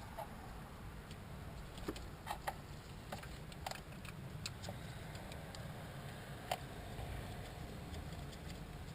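Scattered light metallic clicks and taps of bolts and hand tools being handled while bolts are threaded in by hand, over a low steady hum.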